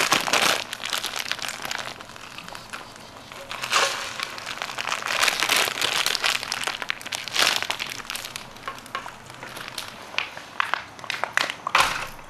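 Plastic zip-lock bag crinkling and rustling in irregular bursts as cooked rice is squeezed out of it into an aluminium lunchbox, with a few small clicks near the end.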